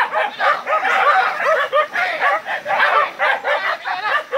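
A pack of village dogs barking and yelping rapidly over one another, several short barks a second, as they bay at a wild boar.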